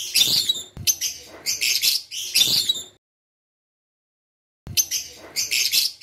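A colony of African lovebirds chirping with shrill, rapid, high-pitched calls. The sound drops out completely for about a second and a half just after the halfway point, then the chirping starts again.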